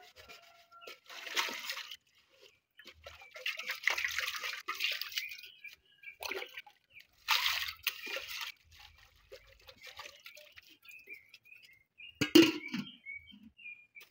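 Water splashing and sloshing in a metal bowl as hands scoop and work in it, in three or four short bursts. A single sharp knock near the end.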